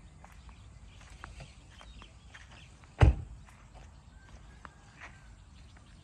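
Faint outdoor ambience with scattered small clicks and ticks, and one loud thump about three seconds in.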